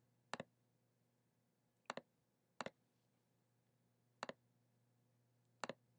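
Computer mouse clicking: five separate short clicks, each a quick double snap of press and release, roughly a second or so apart, against near silence.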